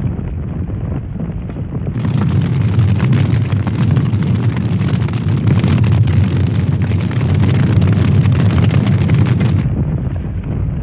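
Wood fire roaring inside a wood-fired chamber kiln during high-temperature firing, with dense crackling from about two seconds in until shortly before the end.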